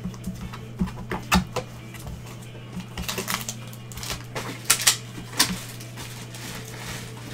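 Gloved hands handling a trading-card box and a foil card pack on a tabletop: a scatter of light taps, knocks and short rustles, the loudest cluster about five seconds in. A steady low electrical hum runs underneath.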